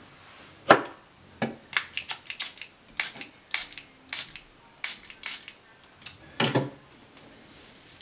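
Oakley lens cleaner pump spray bottle spritzing cleaning solution onto a plastic football visor: about ten short sprays in quick succession. A louder handling thump comes just before the sprays and another near the end.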